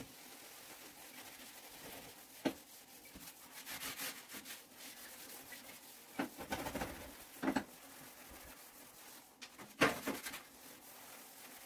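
Kitchen sponge scrubbing the white enamel top of a gas stove with cleaning powder: a steady rough rubbing, broken by a few light knocks, the loudest near the end.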